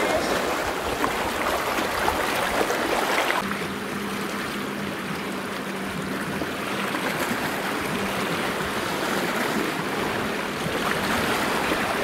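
Small sea waves splashing and washing over shore rocks close by. About three and a half seconds in, the sound drops to a softer, steady wash of open water with a low steady hum running under it for several seconds.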